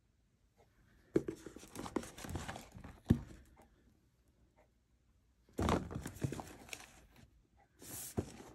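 Cardboard puzzle box being handled and turned over on a table: three stretches of scraping and rustling, with a sharp knock about a second in and another about three seconds in.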